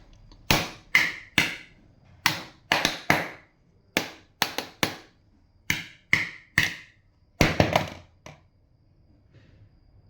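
An empty jug being struck again and again: about eighteen hollow knocks in an uneven rhythm, some ringing briefly, stopping near the end.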